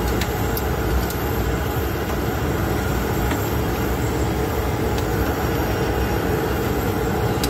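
Steady drone in the cockpit of a parked ATR 72-600, with a few faint clicks from switches on the overhead panel.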